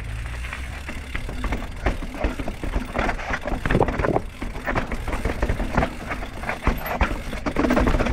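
Mountain bike rattling and knocking as it rolls down stone steps on a rocky path: a fast, irregular run of sharp knocks and clatters as the tyres drop off each step and the bike shakes.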